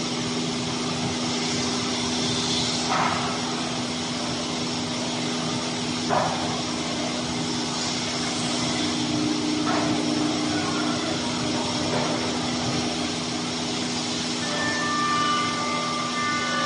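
A 5-axis woodworking CNC machining centre with a water-cooled 16 kW spindle running: a steady machine whir and hum, broken by a few brief swishes. Higher whining tones come in near the end.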